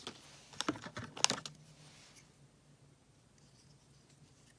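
Clear plastic bags of small lift-kit parts crinkling and the parts clicking together as they are handled. A quick run of rustles and sharp clicks comes in the first second and a half, then only faint rustling.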